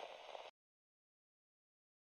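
Near silence: a crackling hiss cuts off abruptly about half a second in, leaving dead silence.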